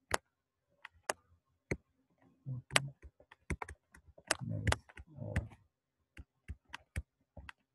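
A pen stylus tapping and clicking on a graphics tablet while handwriting, in quick irregular sharp clicks.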